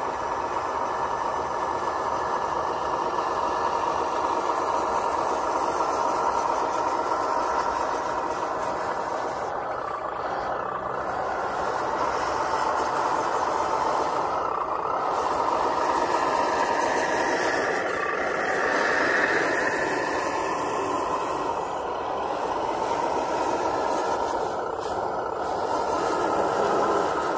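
Radio-controlled scale ten-wheel truck driving over dirt and brush: a steady whine from its drive, whose pitch dips and rises again about two-thirds of the way through.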